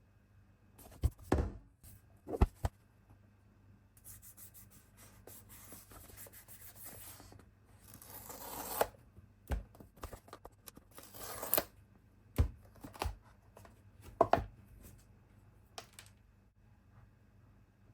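Packaging being handled during an unboxing. Several sharp taps and knocks of the box and its parts being lifted and set down, with a long stretch of rustling and tearing of the packaging in the middle and a shorter rustle a little later.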